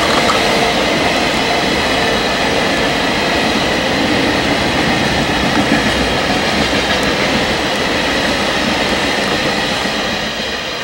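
Freight train of empty oil tank wagons, hauled by two EF64 electric locomotives, rolling past: a steady, loud rumble of steel wheels on the rails that fades slightly near the end as the train draws away.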